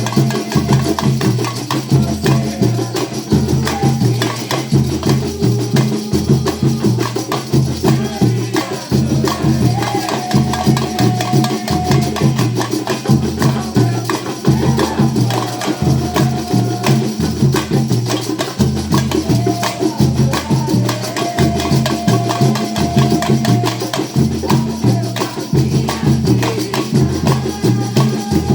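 Music with a steady, repeating bass rhythm, percussion and a few held melody notes.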